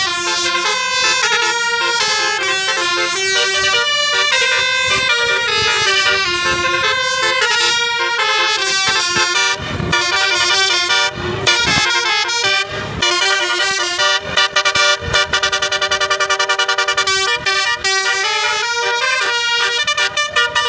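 Telolet horns, the multi-note air horns of Indonesian buses, playing a melody of stepped notes. There are a few short breaks around halfway, then a fast stuttering run of repeated notes through the second half.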